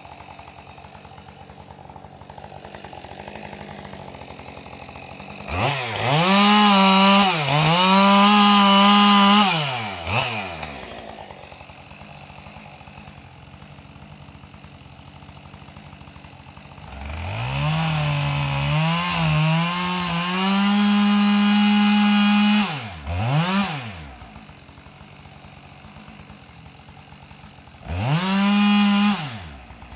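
Two-stroke chainsaw cutting into the trunk of a large pine being felled: it idles, then is run at full throttle in three bursts, two of about five seconds and a short one near the end, dropping back to idle between them. Its pitch sags and recovers as the chain bites into the wood.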